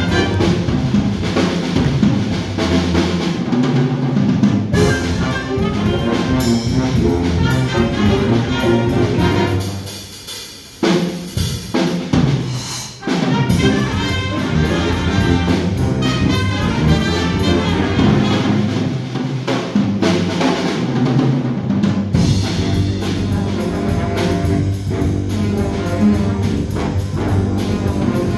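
A school jazz band plays, with brass over drum kit and electric guitar. The band drops away briefly about ten seconds in, then comes back in at full strength about three seconds later.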